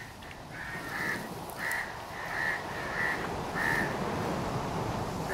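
A small animal calling in short, single-pitched notes, about six of them spaced a little over half a second apart, over a steady hiss-like background noise.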